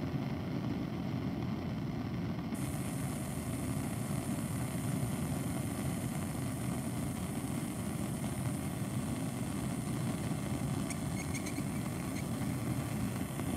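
Bunsen burner on its hot flame, air collar open, giving a steady low rushing sound under a porcelain crucible. Near the end come a few faint light clinks as metal crucible tongs take hold of the porcelain lid.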